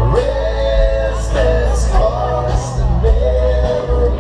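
Loud music with a singing voice carrying a melody over a heavy, steady bass.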